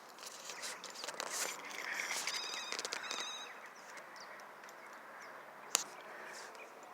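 Birds calling, with a rapid chattering call about two to three seconds in, over outdoor background noise; a single sharp click near the end.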